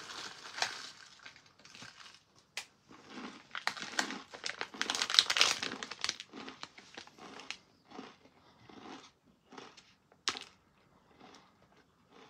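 Snack bag crinkling as Red Leicester Cheesies, baked crunchy cheese pieces, are tipped straight from the bag into the mouth: a dense rustle for the first several seconds. It then thins into scattered crunches as the pieces are chewed.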